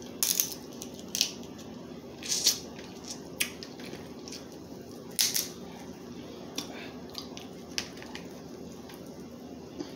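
Crab leg shells being cracked and snapped open by hand, a string of sharp crunches about a second apart.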